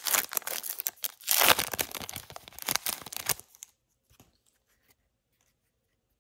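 Trading-card pack wrapper being torn open and crinkled, a run of quick scratchy rasps that stops about halfway through.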